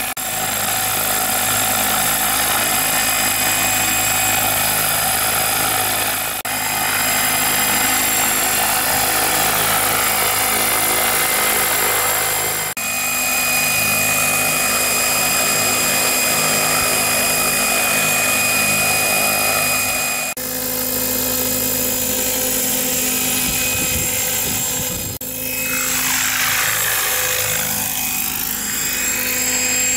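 Radio-controlled 600/700-size scale Bell 222 helicopter flying: steady rotor noise with a constant whine from the drive. It dips briefly at several edits. Near the end it passes close overhead and the tone sweeps down and back up.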